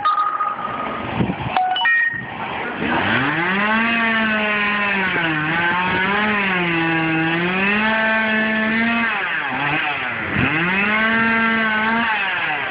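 Chainsaw running at high revs from about two seconds in, its pitch sagging and recovering several times as it bogs down cutting into the fallen tree's limbs.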